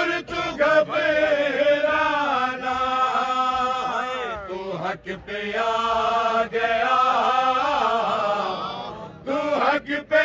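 Men's voices chanting a manqabat, an Urdu devotional poem in praise of Imam Hussain, in long held notes that waver in pitch. The chant breaks off briefly about halfway through and again near the end.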